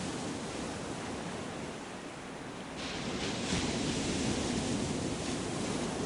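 A steady rushing noise with no distinct events, louder from about three seconds in.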